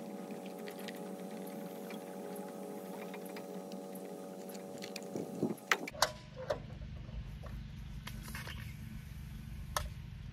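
Truck-mounted pressure-washing hose reels winding in hose. A steady motor hum with several fixed tones runs for about six seconds and then cuts off suddenly. After that comes a low steady rumble with a few sharp clicks and knocks from the reel hardware.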